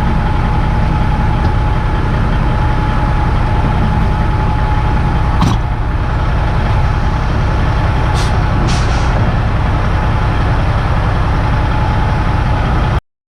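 Heavy diesel truck engine running steadily, with a sharp click about five seconds in and two short hisses a few seconds later. The sound cuts off abruptly near the end.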